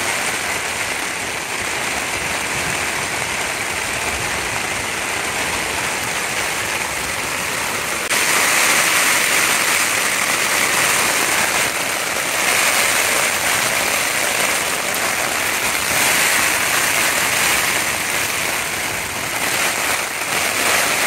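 Heavy rain falling on a tent, heard from inside: a steady hiss of rain that grows louder about eight seconds in and stays strong.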